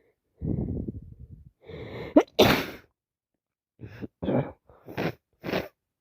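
A woman with a heavy head cold sneezing once. Breathy build-up in-breaths rise into a quick upward "ah" about two seconds in, then comes one loud, sudden sneeze. After it come five short breathy sounds, about two a second.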